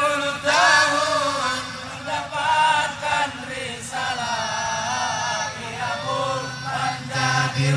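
Male voices singing an Indonesian Islamic devotional song (sholawat) about the life of the Prophet, drawn out in long, wavering melismatic notes. A low note comes in underneath about six seconds in.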